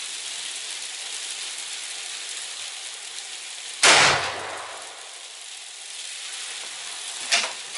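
A single rifle shot from a Mossberg Patriot bolt-action in .308 Winchester about four seconds in, over a steady background hiss. A couple of short clicks follow near the end.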